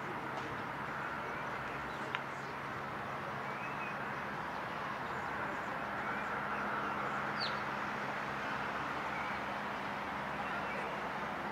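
Steady outdoor background hum and hiss, with a few faint, short bird chirps and a single sharp click about two seconds in.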